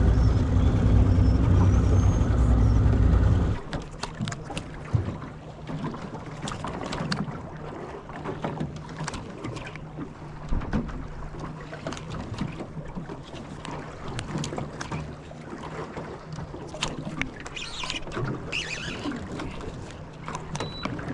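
Boat's outboard motor running with a loud low rumble, which drops suddenly after about three and a half seconds to a quiet steady hum. Small knocks and splashes of water against the aluminium hull come through the hum.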